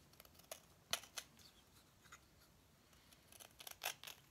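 Craft knife slicing chips off a laminated plywood propeller blank: faint, sharp, crisp cuts, a few spaced out and then a quicker run of them near the end.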